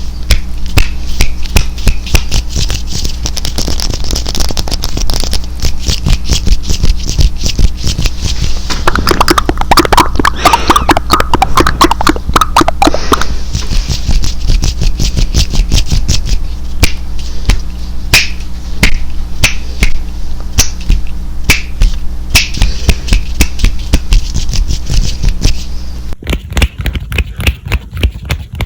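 Fast ASMR hand sounds and mouth sounds close to the microphone: a dense, rapid stream of clicks, taps and rubbing, with a steady low hum underneath. About nine seconds in there is a denser flurry lasting about four seconds. Near the end the hum stops and the clicks become sparser.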